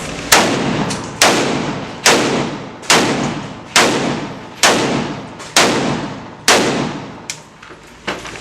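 Eight gunshots fired one at a time in an even rhythm, a little more than one a second. Each crack rings off with a long echo, as in an indoor range. A couple of fainter shots follow near the end.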